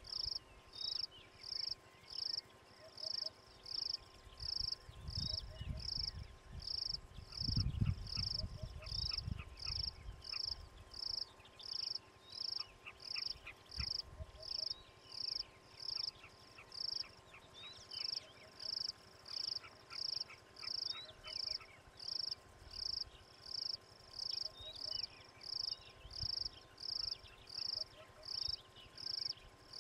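An insect calling in an even, high-pitched pulsing rhythm, about three pulses every two seconds, with faint bird chirps. A low rumble comes in about five seconds in and fades by ten seconds.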